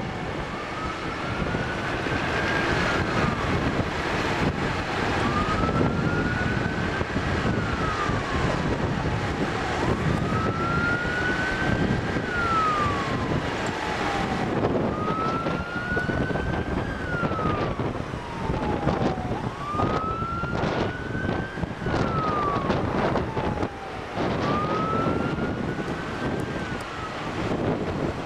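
A siren wailing slowly and repeatedly, each cycle rising for about two seconds and then falling away, six times in all, over steady wind and road noise on the microphone.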